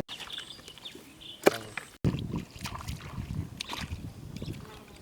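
Water sloshing and splashing in an uneven way, with a few sharp clicks, breaking off abruptly about two seconds in before the sloshing goes on.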